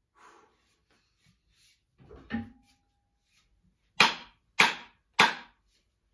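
Three sharp wooden knocks about half a second apart as a hickory axe handle is rapped to drive a small Plumb axe head down onto it for a test fit. A lighter knock with a short metallic ring comes about two seconds in.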